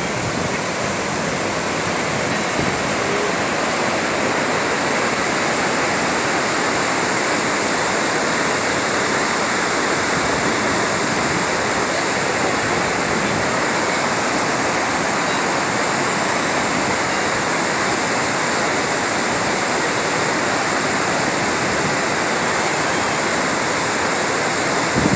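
Whitewater rapids of the Niagara River rushing steadily: an even, unbroken wash of water noise.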